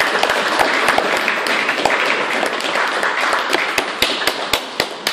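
Small group applauding: sharp, irregular claps over a steady hiss of clapping, fading toward the end.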